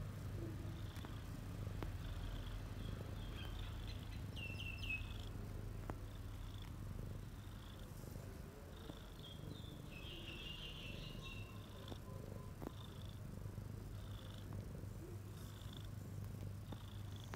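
Domestic cat purring steadily, close up.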